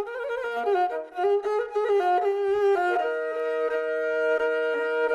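Kyl-kobyz, the Kazakh two-string bowed instrument with horsehair strings, playing a kyui: a quick, ornamented melody for about three seconds, then settling into a long held note over the drone of the second string.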